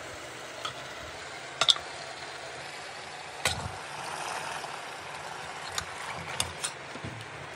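Steel ladle knocking and scraping against a pressure-cooker pot while chunks of mutton are stirred. A handful of sharp clinks, two close together early on, one a little before the middle and three lighter ones later, over a steady low hiss.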